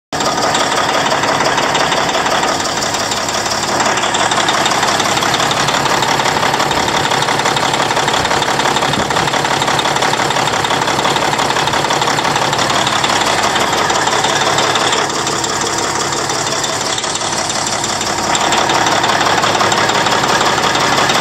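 Caterpillar C18 twin-turbo six-cylinder diesel engine of a power unit running steadily.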